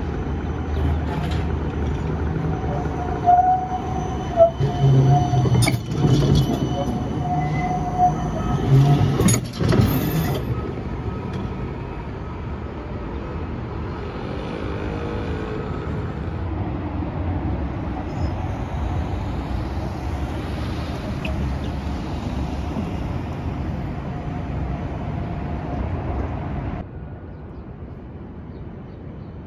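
Cincinnati Bell Connector streetcar, a CAF Urbos 3 tram, rounding a tight curve with a thin, steady wheel squeal and two sharp clanks, about six and nine seconds in. After that comes a steadier rumble of the tram and street, which drops to quieter background near the end.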